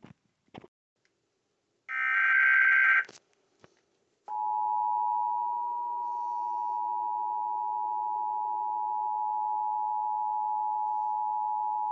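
About two seconds in, a loud one-second burst of Emergency Alert System digital header (SAME) data tones. About a second later the EAS two-tone attention signal (853 and 960 Hz) comes on and holds steady for about eight seconds, marking the start of a relayed severe thunderstorm warning.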